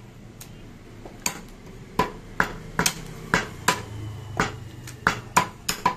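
Heavy butcher's cleavers chopping goat meat on a wooden log chopping block: about a dozen sharp chops at an uneven pace, coming faster after the first two seconds.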